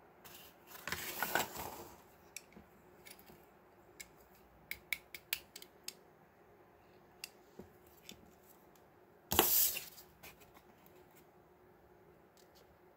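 A cardboard blister card and a small die-cast toy car being handled: two bursts of rustling and scraping, about a second in and again near ten seconds, with a few light clicks and taps in between.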